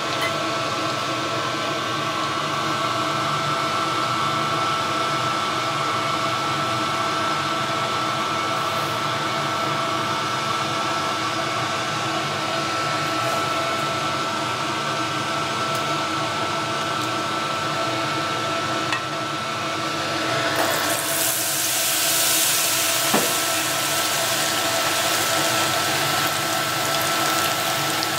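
A steady mechanical hum with a light hiss. About twenty seconds in, battered fish goes into hot oil and a loud, bright sizzle of tempura deep-frying takes over, with one sharp click shortly after.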